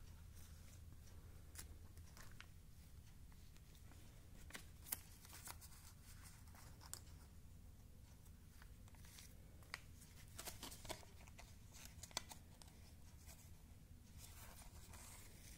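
Thin plastic archival negative sleeves being handled: faint, scattered crinkles and clicks of the sheets, a few sharper ones in the middle, over a low steady hum.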